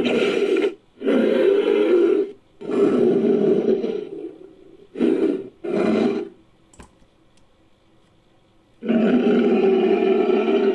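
Made-up creature calls mixed from Styracosaurus sound effects and Sumatran rhinoceros sounds, deep and roar-like. There are about five separate calls in the first six seconds, the third trailing off slowly. After a pause, one long call starts near the end.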